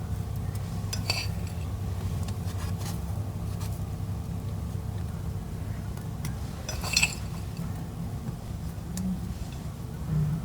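Kitchen utensils clinking against dishes, with a loud clink about seven seconds in and a smaller one about a second in, over a steady low hum.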